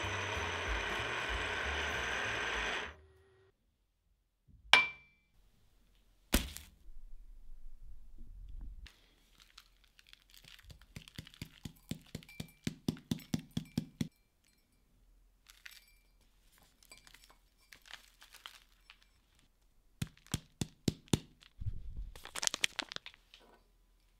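End mill on a converted CNC milling machine cutting a steel flat bar, stopping about three seconds in. Then a single loud knock, and later runs of quick light clicks and taps from granules and a glass mug.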